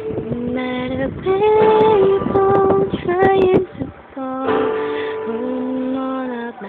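Young female voices singing held, sliding notes of a song's closing phrase, with a short break about four seconds in.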